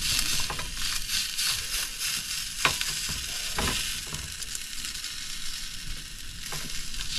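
Sausages and black pudding sizzling steadily in a RidgeMonkey pan on a gas camping stove. Two sharp clicks, about two and a half and three and a half seconds in, come from the knife and tongs against the pan as the sausages are cut.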